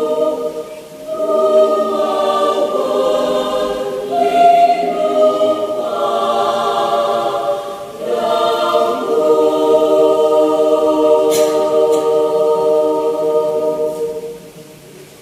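Mixed-voice adult church choir singing in sustained chords, in phrases with short breaths between them; the last chord is held long and released just before the end.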